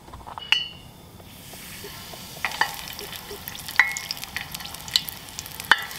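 Floured squirrel pieces going into hot oil in a cast iron skillet: the oil starts to sizzle about a second in and grows louder, crackling with sharp pops. Near the start there is a single metallic clink with a short ringing note.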